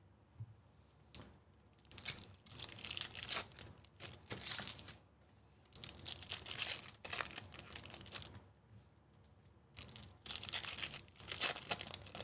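Foil wrappers of baseball card packs being torn open and crinkled by hand, in several bursts with short pauses between.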